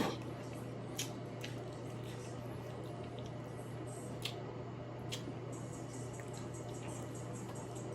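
Close-up eating sounds of a seafood boil: scattered wet squishes and sharp clicks of shells and sauce-soaked food being handled and chewed, the loudest right at the start, over a steady low hum.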